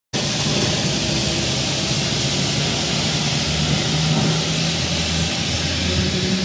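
Low droning hum over a steady loud rushing noise, the hum growing stronger about three and a half seconds in: one of the unexplained 'strange sounds in the sky'.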